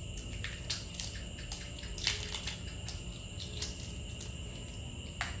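Shell of a boiled duck egg crackling in small, scattered clicks as it is peeled by hand, with a denser patch about two seconds in and a sharper click near the end, over a steady low room hum.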